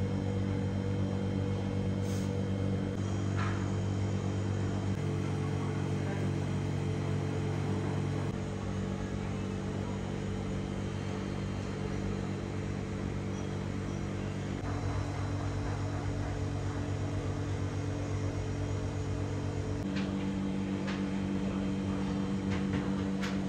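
A steady low hum of several held tones that shift in pitch every few seconds, with a few faint clicks.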